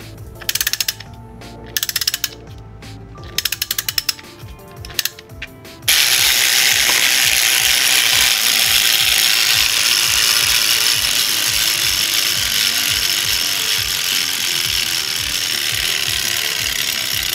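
3D-printed PLA spring motor: the winding knob is turned in short strokes, its ratchet pawl clicking in quick bursts. About six seconds in, the spring is let go and the plastic gear train and pallet escapement run in a loud, fast, continuous chatter that slowly fades as the PLA spring unwinds.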